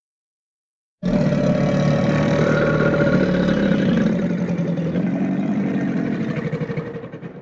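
Animal chattering sound effect: a loud, buzzy, rapidly pulsing chatter that starts abruptly about a second in and tails off near the end.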